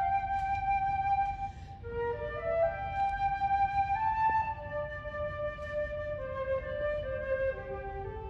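Flute playing a slow, single melodic line of held notes that wander and mostly step downward into the low register, with soft breath noise between phrases.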